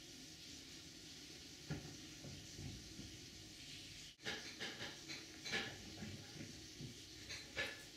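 A Bengal cat running and bouncing on a tile floor: a single thump about two seconds in, then from about halfway a quick run of irregular paw thumps and taps, over a steady hiss.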